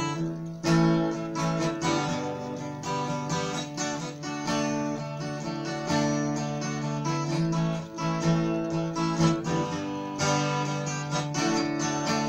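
Acoustic guitar strummed in chords, the strings ringing on between strokes.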